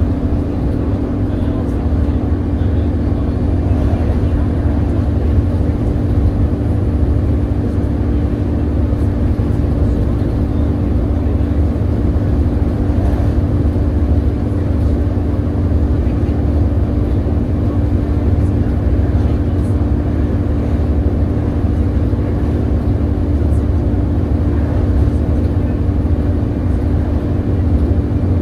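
Volvo B7TL double-decker bus heard from on board, its Volvo D7C straight-six diesel and cooling fans running: a steady low rumble with a steady hum over it, neither rising nor falling.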